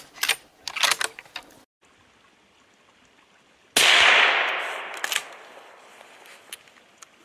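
A single loud rifle shot about three and a half seconds in, its echo fading away over a second or so.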